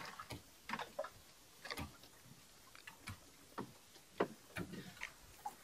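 Faint, irregular clicks and knocks, about two or three a second.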